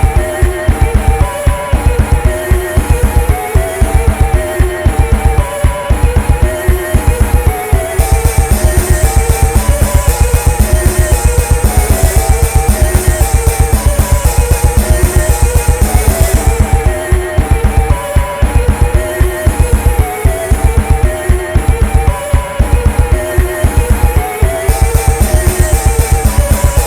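Electronic music with a fast, steady kick drum, a deep bass and repeating synth melody lines. Hi-hats drop out and come back in partway through.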